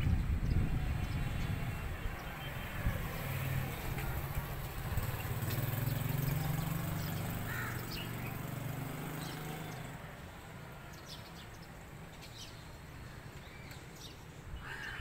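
Outdoor ambience: a steady low engine hum, like a passing vehicle, that fades away about ten seconds in, with scattered faint ticks. A bird calls once about halfway through and again right at the end.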